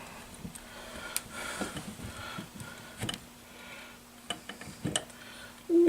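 Scattered light clicks and knocks of metal parts as a crankshaft and its bearings are worked into an outboard engine block, over a faint steady hum.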